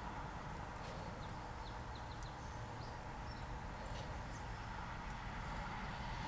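Steady low rumble inside a parked car's cabin, the car's engine idling. A few faint, short high chips come through about one to two seconds in.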